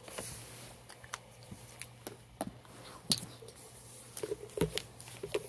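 Scattered light clicks and taps of a paint marker being handled at a canvas, over a low steady hum.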